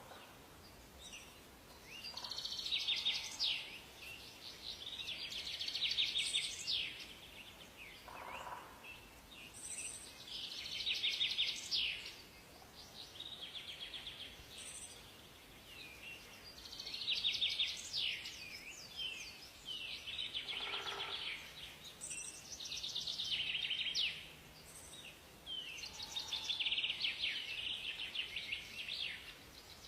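Forest birdsong: high, rapid trilled song phrases repeat every few seconds over a faint background hiss. Twice, about eight seconds in and about twenty-one seconds in, a lower call falls in pitch.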